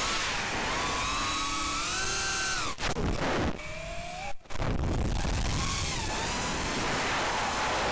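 FPV quadcopter's brushless motors whining over rushing wind, the pitch rising and falling with the throttle. The whine drops out briefly twice near the middle as the drone rolls over the treetops.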